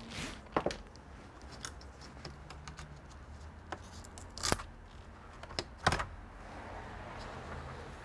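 Irregular sharp clicks and taps of small hard parts and tools being handled during a computer repair, the loudest about half a second in, then near four and a half and six seconds in.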